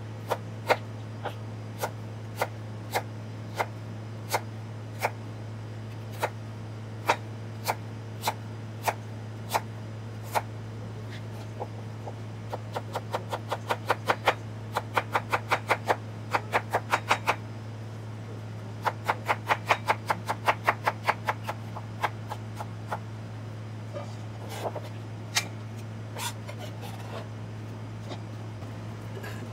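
Kitchen knife cutting daikon radish on a plastic cutting board: single chops at first, then quick runs of about five strokes a second as the radish is julienned. A steady low hum runs underneath.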